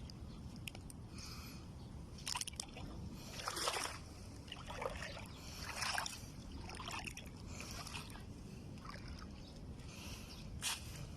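Small waves lapping and sloshing at the water's edge in short, uneven washes every second or two, over a steady low rumble.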